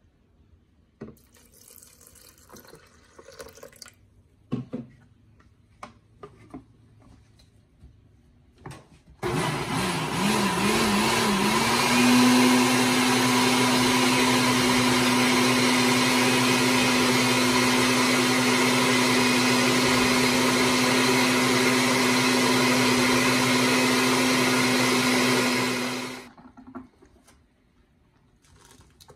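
Countertop blender running for about 17 seconds, grinding split mung beans into a smooth liquid. Its motor pitch wavers for the first couple of seconds, then holds steady until it cuts off. Before it starts there are a few light clicks and knocks of handling.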